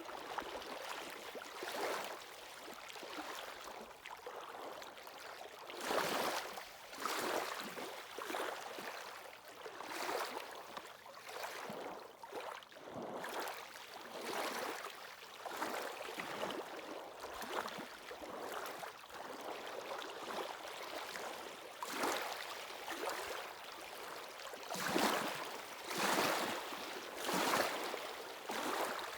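Sea waves washing onto the shore in a steady wash of water. Surges come every second or two, with louder swells about six seconds in and again over the last several seconds.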